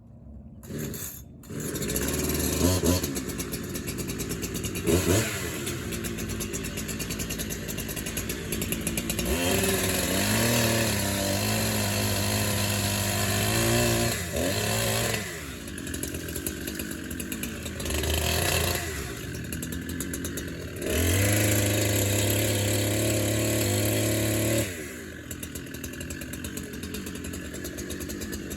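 Two-stroke chainsaw started and running, idling between two runs at full throttle of a few seconds each, about ten seconds in and again about twenty-one seconds in.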